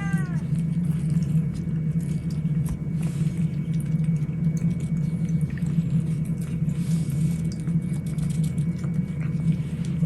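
A steady low rumble, with faint scattered small clicks over it; a cat's meow trails off at the very start.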